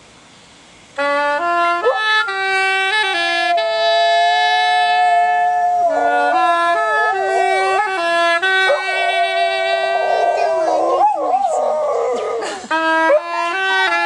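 A clarinet plays a slow melody of held notes, starting about a second in. From about halfway a dog howls along, its wavering pitch sliding around the clarinet's notes, densest near the end just before a brief break, after which the clarinet carries on.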